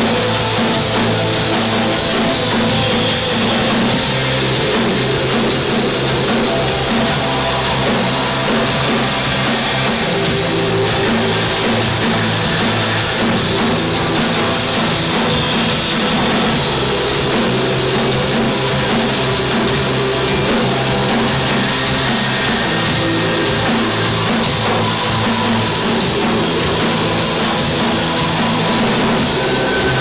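A live rock band playing electric guitars, bass guitar and drum kit, loud and unbroken.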